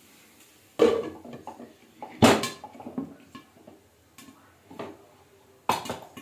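Glass lid being set on a non-stick kadai of popcorn kernels heating in oil, with several sharp clanks of glass and metal, the loudest about two seconds in, and lighter ticks between them.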